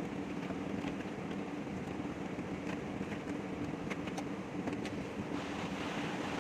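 A steady mechanical hum runs throughout, with a few faint clicks and knocks of plastic as the radiator fan and shroud assembly is worked loose and pulled out of the engine bay.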